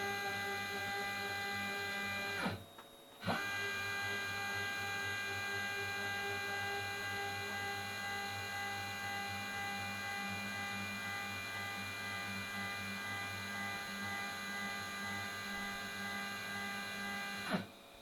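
Homemade CNC router's motors running with a steady whine made of several tones. They stop briefly about two and a half seconds in, gliding down and back up as they halt and restart, then wind down and stop near the end.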